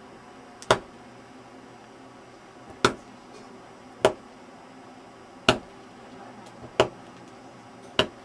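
A carving knife cutting into a block of dental carving wax, making six short, sharp clicks as the wax cracks away, one every one to two seconds. It is reducing the block pass by pass to size.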